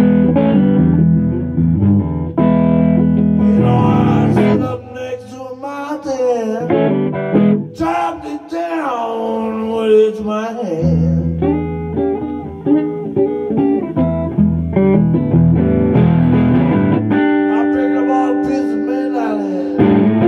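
Solid-body electric guitar played live, picking chords and lead lines with sliding, wavering notes in the middle and held notes near the end, with a man singing at times.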